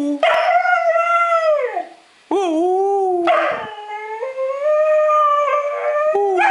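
Young Siberian husky howling in long, drawn-out calls that waver up and down in pitch. A shorter, lower call comes about two seconds in, between two long ones.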